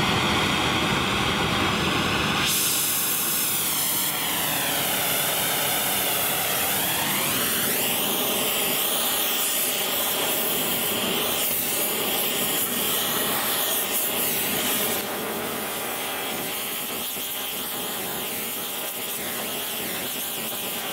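Oxy-fuel cutting torch flame burning with a steady rushing hiss as it heats a small O1 tool-steel part toward hardening temperature before an oil quench. About two seconds in the sound thins and wavers in slow sweeps, and it gets a little quieter past the middle.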